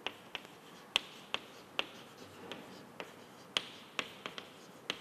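Chalk tapping and scraping on a blackboard as a word is written: about a dozen sharp, irregular clicks.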